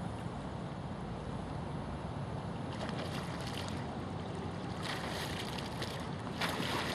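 Wind and water noise at a pond: a steady low rumble, with bursts of hissing, splashy noise from about three seconds in.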